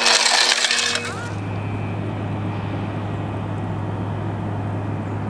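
A loud hiss cuts off about a second in, leaving a heavy engine running steadily with a low, even hum.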